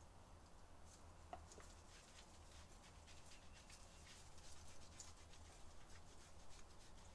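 Near silence with faint rubbing and scattered light clicks of hands lathering shampoo into a wet dog's short coat.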